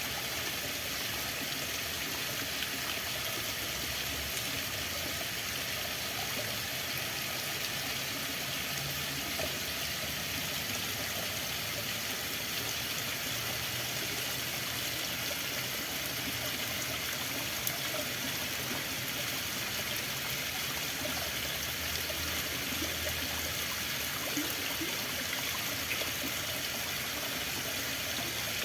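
Running water flowing steadily, an even, unbroken rush with a little trickling in it.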